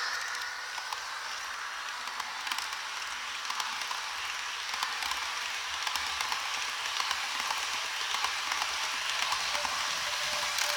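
Märklin model electric locomotives running on track: a steady hiss with many small, irregular clicks.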